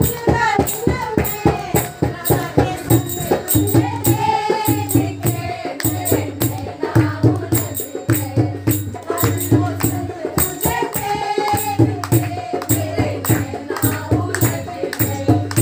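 Hindi devotional bhajan music: a voice sings the melody over a steady, quick beat of jingling percussion.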